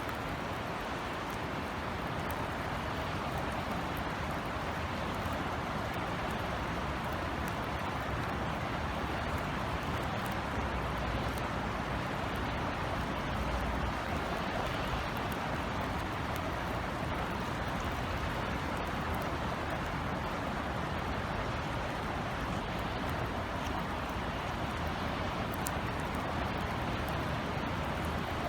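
Steady summer drizzle falling on outdoor surfaces: an even hiss of rain with scattered faint drop ticks.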